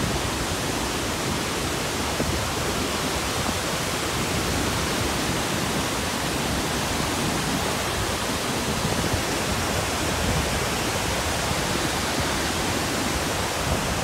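Iguazu Falls pouring into the river below: a steady, even rush of falling water.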